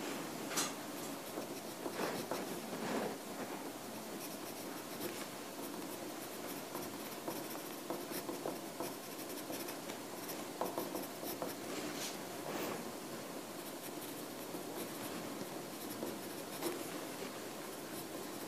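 Handwriting on paper: the writing tip scratches in short, irregular strokes.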